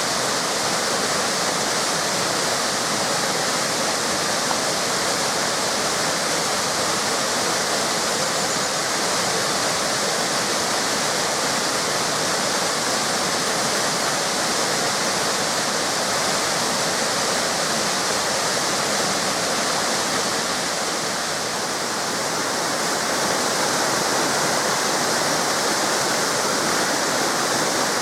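Waterfalls: a steady rush of water falling and splashing into a river.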